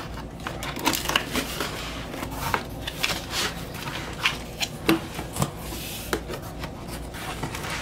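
Scissors snipping through packing tape on a cardboard mailer, then the cardboard flaps being pulled open and handled, in a run of scattered sharp clicks, scrapes and rustles.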